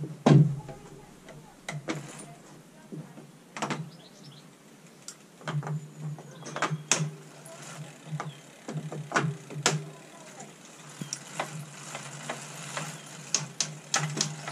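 Road bike on a turbo trainer being mounted and pedalled: a run of sharp clicks and knocks as the rider handles the bike and gets her feet onto the pedals, then the drivetrain and trainer roller whirring more steadily from about ten seconds in as pedalling gets going.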